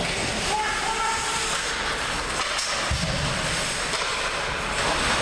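Ice hockey rink noise: a steady hiss of skates on the ice and arena sound during play, with brief faint shouts about a second in.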